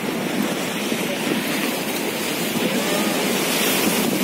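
Steady rush of rough surf breaking on rocks.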